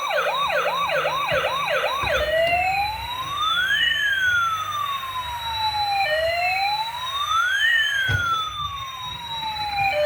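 Electronic siren sound effect from a battery-powered toy emergency vehicle. It runs a fast yelp of quick rising sweeps, about three a second, then switches about two seconds in to a slow wail that rises and falls about every four seconds.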